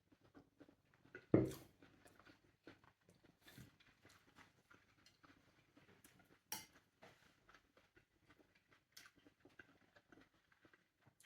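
Quiet eating sounds: scattered small clicks and taps of tableware and handling of Vietnamese fresh spring rolls, with soft chewing. A few sharper knocks stand out, at about one and a half, six and a half and nine seconds in.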